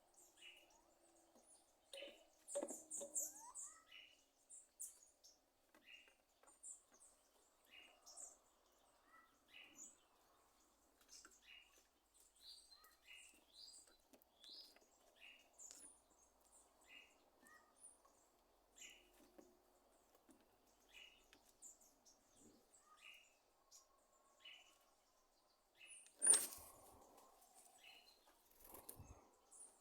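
A sabiá thrush giving short, faint popping calls, roughly one a second, like popcorn popping. A loud sharp knock comes near the end.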